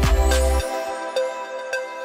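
Background music: held melodic notes over a deep bass and beat, with the bass and beat dropping out about half a second in, leaving only the lighter notes.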